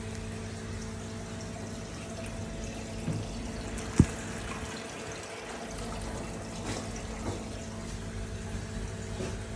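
HW-5000 canister filter running just after start-up, with a steady pump hum and the rushing, bubbling water of trapped air being purged out through the outlet. A single sharp click about four seconds in.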